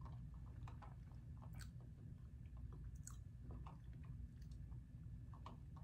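Faint close-up chewing with scattered soft mouth clicks and smacks.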